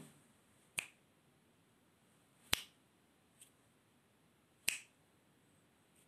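Finger snaps close to the microphone: three sharp snaps about two seconds apart, with a fainter one between the second and third.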